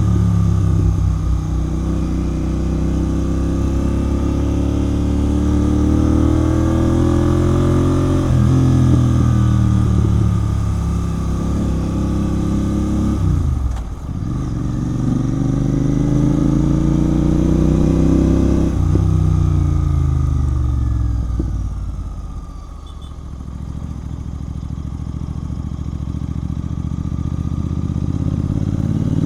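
Royal Enfield Continental GT 650 parallel-twin with a Red Rooster aftermarket exhaust, under way: the engine note climbs as it pulls, dips sharply at a gear change about halfway, and climbs again. A little past two-thirds through it eases off and falls in pitch and loudness, then picks up once more near the end.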